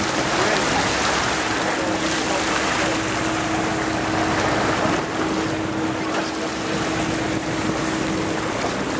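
Fishing boat's engine running with a steady drone under a loud wash of wind and choppy sea water.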